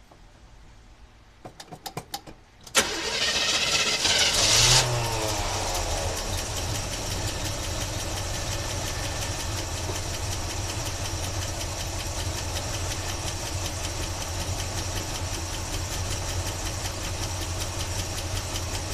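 1976 Chevy Blazer's carbureted engine being started: a few short clicks of cranking, then it catches about three seconds in, runs fast for a couple of seconds and settles into a steady idle.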